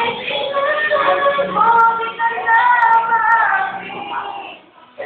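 A child singing a Filipino song with no words picked up as speech, holding several long notes through the middle, with a short breath pause near the end.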